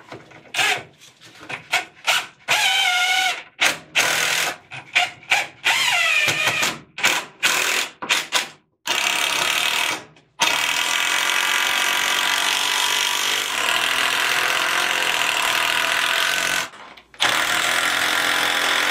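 Cordless driver driving screws through wooden blocking into the wall studs. It starts as a string of short trigger bursts, the motor speeding up and slowing, then runs steadily for several seconds at a time, with one brief stop near the end.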